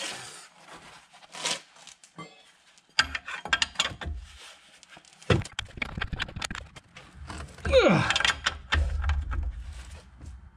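Ratchet spanner clicking in bursts as the nylock nut on a new track rod end is tightened, with knocks from the tool and gloved hand against the suspension. About eight seconds in comes a short, loud sound that slides down in pitch.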